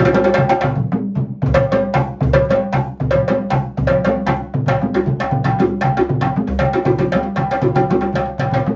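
Live West African hand drumming on djembe-type drums: a fast, steady rhythm of sharp slaps and ringing tones, with a short break about a second in.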